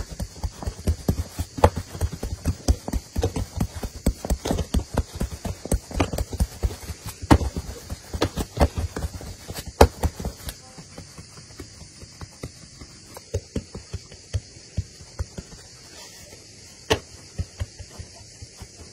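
Fingers and knuckles pressing flatbread dough against a wooden board, making rapid soft thudding taps. The taps thin out to sparser ones about halfway through, with a sharper click near the end.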